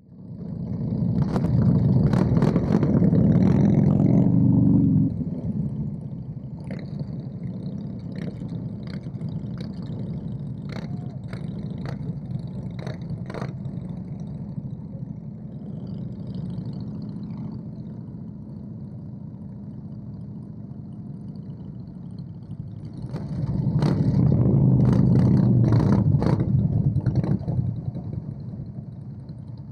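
Motorcycle engines running as a group of bikes pulls away at low speed, heard from a bike in the line. The engine sound swells louder twice for several seconds, at the start and again near the end, with scattered sharp clicks in between.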